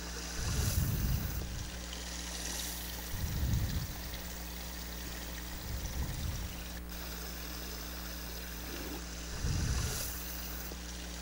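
Small stream of water running steadily, with a few soft low bumps spread through and a single sharp click about seven seconds in.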